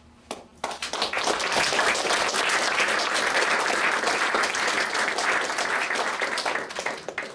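Audience applauding: a couple of first claps, then steady clapping for about six seconds that dies away near the end.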